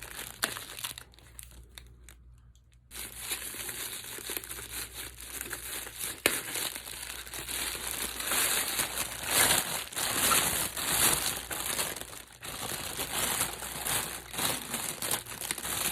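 Crinkly packaging being handled, crumpled and torn open: a few scattered rustles at first, then continuous crinkling from about three seconds in.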